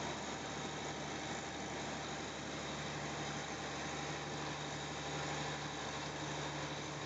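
Fishing boat's engine running steadily under way, a constant low hum, with water and spray rushing against the hull in choppy seas.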